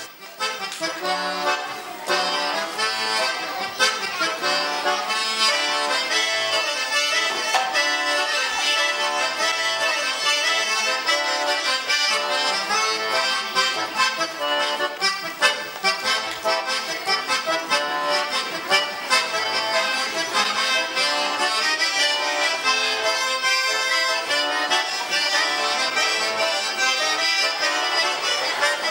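Accordion music, a continuous stream of quick notes at a steady level.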